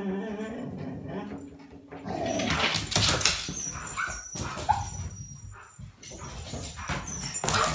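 Excited dogs whining, with a couple of short, high rising yelps about four seconds in and a few sharp clicks and knocks in between.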